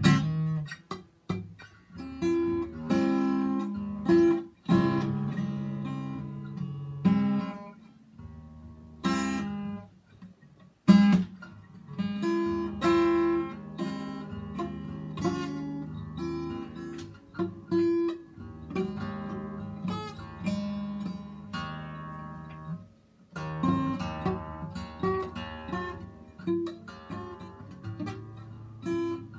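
Solo acoustic guitar played by hand: chords strummed and picked in short phrases, with brief pauses between some of them.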